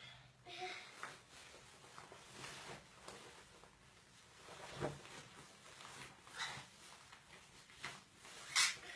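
Faint rustling of clothing with scattered soft knocks as a small child dresses herself, with a louder hissy rustle near the end.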